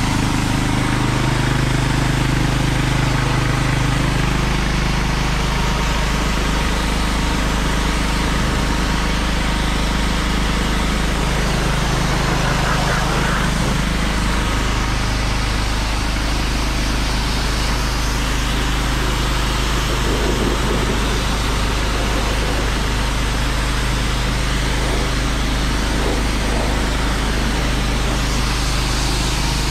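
Snow foam lance on a Kärcher K4 pressure washer spraying with a steady hiss, over the running of the washer's pump and the Böhmer-AG WX3800K portable petrol generator that powers it. A low hum shifts pitch a couple of times.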